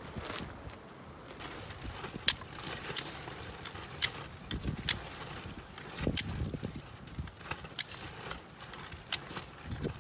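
A series of sharp clicks and knocks, irregularly spaced about a second apart, some with a dull low thud, as of hard objects being handled or knocked together.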